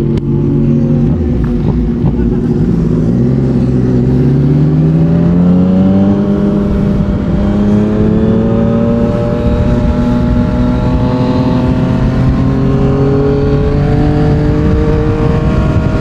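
Yamaha MT-09's inline three-cylinder engine through a Yoshimura R55 slip-on exhaust, pulling under way. Its note dips briefly about three seconds in, then climbs smoothly for a few seconds and edges slowly higher toward the end.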